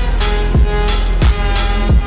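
Slowed-and-reverbed electronic track: a deep kick drum hits about every two-thirds of a second under a sustained, held melody line.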